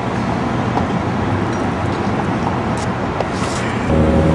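Steady rush of street traffic noise with no distinct events. Near the end it steps louder and a low steady hum comes in.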